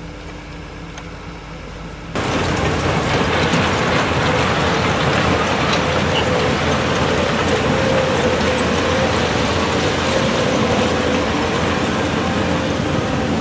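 Shantui DH17C2 crawler bulldozer working: its engine running under the metallic clatter of its steel tracks, which jumps suddenly much louder about two seconds in.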